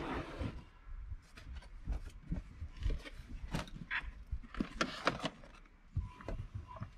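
Rustling, scraping and knocking as a leather bag and other gear are lifted and shifted around in the back of a van, with scattered short clicks and thuds.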